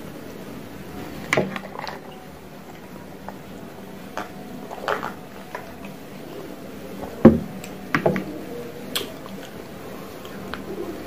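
A heavy glass mug of iced drink being handled and set back on the table: scattered small clinks and knocks, the loudest a sharp thump about seven seconds in.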